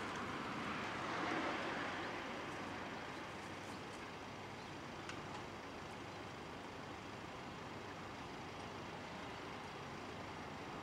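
Road traffic noise: a vehicle passing, loudest a second or two in, then a steady traffic hum.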